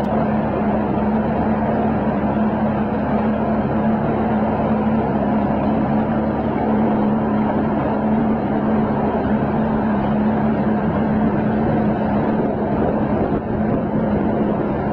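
Outboard motor running at a steady cruising speed, pushing a small boat along: a constant-pitch drone with the rush of the hull through the water.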